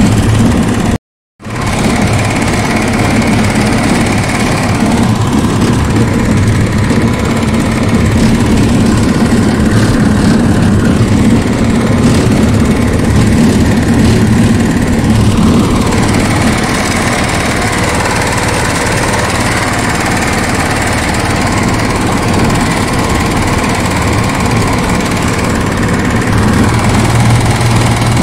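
Power tiller's engine running steadily, with a low, even hum. The sound cuts out briefly about a second in.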